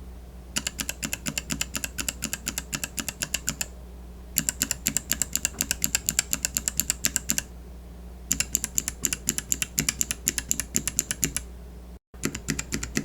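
Kailh mechanical keyboard switches in a switch tester being tapped rapidly, about ten clicky strikes a second, in runs of about three seconds with short pauses between as the tapping moves from one switch to the next.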